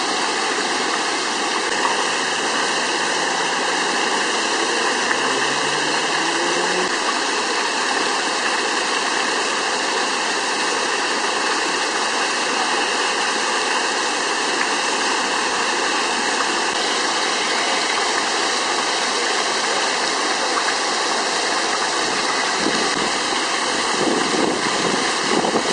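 Fountain jets falling and splashing into a pool: a steady, even rush of water.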